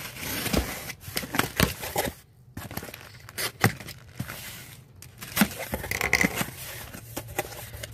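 Utility knife slitting packing tape along a cardboard box, then the cardboard flaps pulled open and handled, with irregular scrapes, clicks and rustles.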